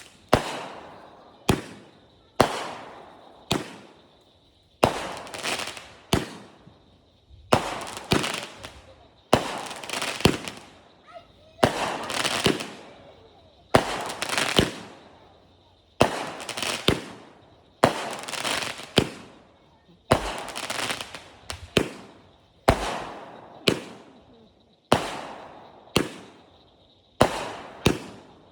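Fireworks going off in a long, steady string of sharp bangs, about one a second, each trailing off in a fading hiss.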